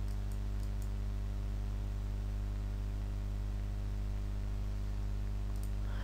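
Steady low electrical hum with hiss from the recording setup. Over it come several faint mouse clicks in the first second and a couple more shortly before the end, made as dots are painted with the brush tool.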